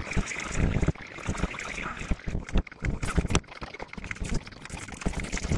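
Irregular knocks, clicks and rubbing of a cordless chainsaw's plastic case being handled and worked on with a screwdriver during disassembly.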